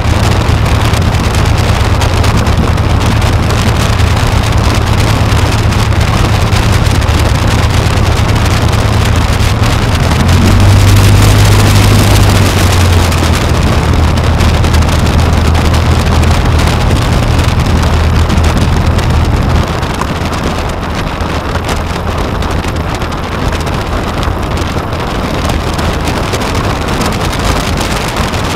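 Aeronca Chief's light-aircraft piston engine and propeller running with the plane rolling on the ground, a steady low engine tone under a rushing noise. The engine briefly runs louder about ten seconds in, then is throttled back a little after two-thirds through and gets quieter.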